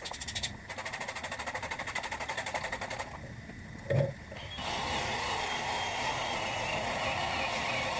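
Workpro 12V cordless 3-inch sander/polisher sanding a plastic headlight lens with 2000-grit: a fast pulsing rhythm for the first few seconds, a short lull, then a steady running sound from about halfway.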